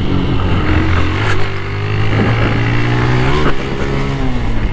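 Honda CG 160 Start motorcycle's single-cylinder four-stroke engine heard from the saddle while riding, its revs rising and then falling away in the second half.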